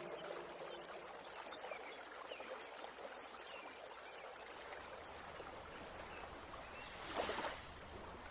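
Faint, steady background hiss in a pause of Quran recitation, with the last of the reciter's voice dying away at the start and a brief soft rush of noise about seven seconds in.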